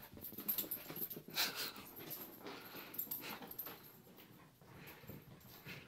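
A dog going wild after its walk: short, irregular breathy noises and scuffling as it tears about.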